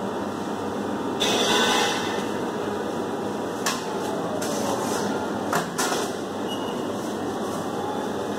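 Steady background hum at a sandwich counter. About a second in there is a short plastic-like rustle, then a few sharp clicks and knocks as gloved hands lay cheese slices on the sub.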